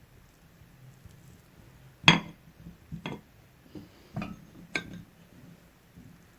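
Four sharp clinks of kitchen items against metal cookware, the first the loudest.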